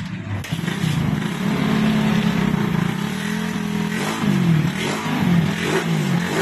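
Suzuki Raider 150's single-cylinder four-stroke engine catching about half a second in and running, then revved up and down several times: the first test run after a flood-damage overhaul in which a connecting rod bent by water in the cylinder was replaced.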